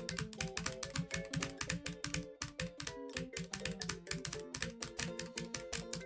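Music with held notes that step from one pitch to another, under a fast, dense run of sharp clicks, roughly ten a second.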